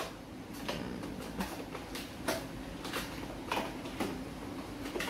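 Light plastic knocks and rattles from a toy dump truck being handled by a small child, several short clacks spaced irregularly about every half second to a second.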